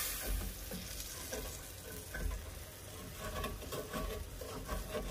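Wooden spatula stirring chicken broth in a stainless steel skillet while the broth simmers and sizzles, deglazing the pan and lifting the browned fond as the liquid reduces.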